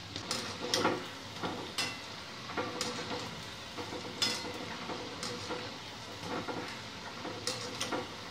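Potato nuggets deep-frying in hot oil in a steel kadai, a steady sizzle, while a wire-mesh skimmer stirs them and clinks and scrapes against the pan in sharp clicks every second or so.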